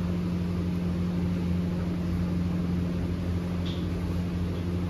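Steady low machine hum with a constant low tone, unchanging throughout.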